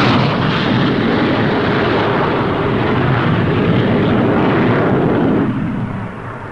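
Aircraft flying past, a loud, steady engine noise that falls away about five and a half seconds in.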